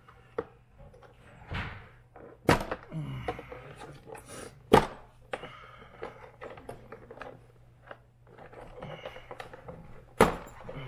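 Hand tools and bits being handled on a workbench: a few sharp knocks and clunks with small rattling in between.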